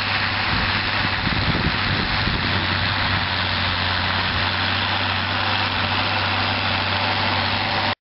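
John Deere 6810 tractor's six-cylinder diesel engine running steadily under load while pulling a plough through the soil, a constant low hum with a strong even drone.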